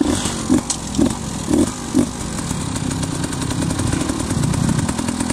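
Enduro dirt bike engine revving in short blips about twice a second for the first two seconds, then running more steadily.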